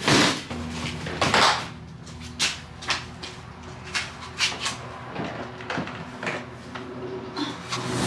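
Irregular knocks, bumps and scrapes of plastic storage bins and a cardboard Christmas tree box being shoved and shifted through a ceiling attic hatch at the top of a wooden ladder, the loudest knocks near the start and about a second and a half in. A faint steady low hum runs underneath.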